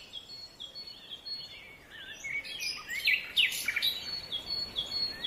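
Several birds chirping and calling, with quick notes sliding up and down, over a faint steady hiss. The sound cuts off suddenly near the end.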